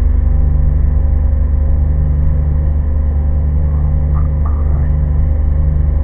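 Van engine held at a steady raised speed, heard from inside the cab as a steady low hum. It is kept revved so the 90-amp alternator puts out full power while an inverter draws about 900 watts to run a microwave, instead of pulling down the starter battery.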